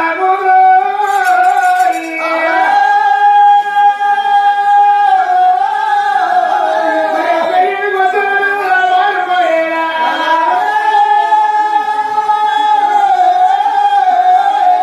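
Telugu devotional folk singing: a high voice holding long, drawn-out notes, several seconds each, sliding from one pitch to the next.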